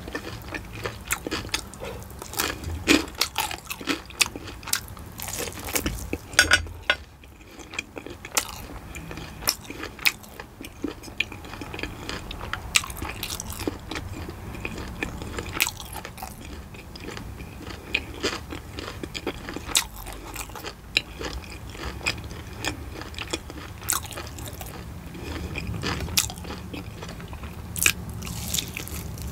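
Chewing and biting into crispy glazed fried chicken, with many irregular sharp crunches of the coating.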